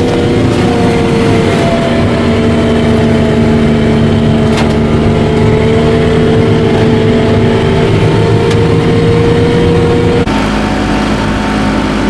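Diesel engine of a tracked Softrak biomass harvester running steadily under load, heard loud from inside its cab, its drone drifting slightly in pitch. About ten seconds in, the sound cuts to the machine running, heard from outside.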